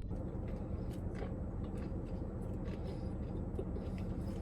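Quiet eating sounds, a few faint spoon clicks and chewing, over a steady low hum.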